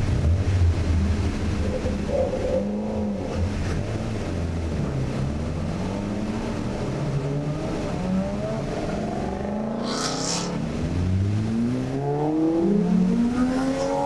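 Ford Focus RS's turbocharged 2.3-litre four-cylinder with a Borla ATAK exhaust, heard inside the cabin under load on track. Its pitch climbs and drops back several times in succession. A short hiss comes about ten seconds in.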